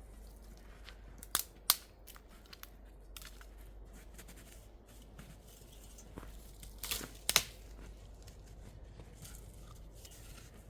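Sharp, crisp snips or snaps in two pairs, one about a second and a half in and one about seven seconds in, over faint rustling and crackling.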